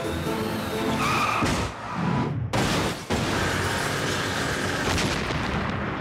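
Cartoon crash sound effect for a school bus hitting the ground after a jump: a sudden crash about three seconds in, then continuing smashing noise with another hit near five seconds. Orchestral music runs beneath it.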